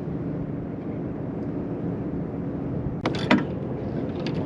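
Boat motor running steadily, with a short sharp clatter about three seconds in.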